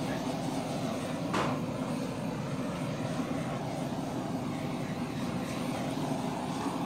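Handheld butane torch flame hissing steadily as it is swept over wet acrylic pour paint to pop air bubbles. One short click about a second and a half in.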